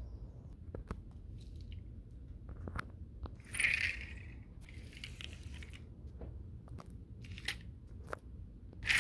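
Handling noise from plastic toy train wagons and the camera being moved about on a rug: scattered light clicks and a few short rustling scrapes, the loudest about three and a half seconds in, over a faint steady low hum.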